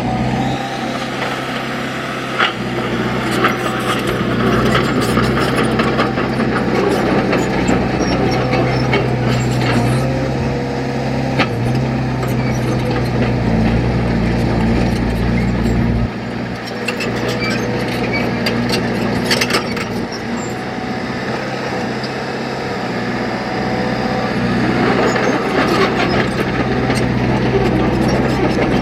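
Heavy earthmoving machine's engine running under changing load, its pitch shifting up and down several times, with occasional sharp knocks and clanks.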